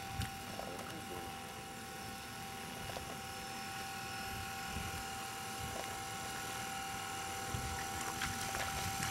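Electric motor and propeller of a radio-controlled Hobbyzone Super Cub floatplane whining steadily as it taxis on the water, growing slowly louder as it comes closer.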